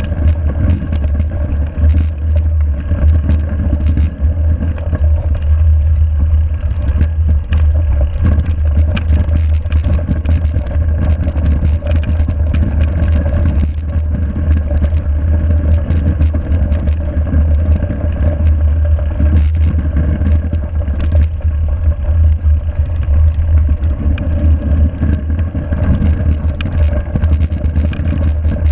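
Mountain bike rolling fast over a snow-covered forest road, heard through a bike-mounted GoPro: a heavy steady rumble of wind and vibration on the camera, tyre noise on the snow, and frequent short rattles and clicks as the bike jolts over bumps.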